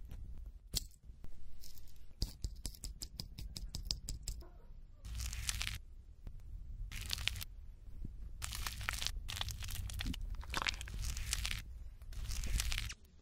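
Pills being pushed out of blister packs: a run of quick clicks, then several short bursts of foil tearing and plastic crinkling about a second apart.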